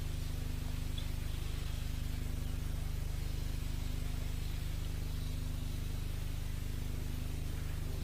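Steady low hum with a faint hiss behind it, unchanging throughout, with no speech or distinct events.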